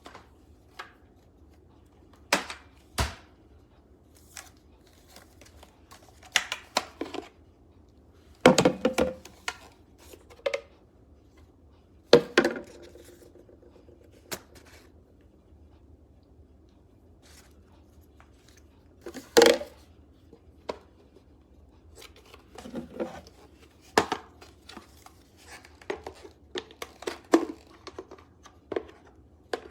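Irregular knocks, clicks and light clatter, a dozen or so scattered short impacts with brief ringing after a few, over a faint low hum. No motor is running.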